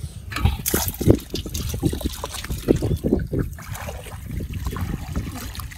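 Shallow muddy water splashing and sloshing in irregular bursts as people wade waist-deep and sweep a round hand net through it, busiest in the first few seconds.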